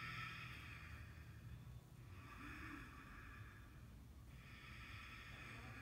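Faint breathing of a person holding a yoga low plank: three long breaths of about two seconds each, over a low steady room hum.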